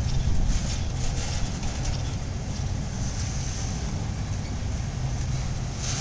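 Freight cars of a welded rail train rolling past: a steady low rumble of steel wheels on the rails, with a few faint clicks in the first second or two.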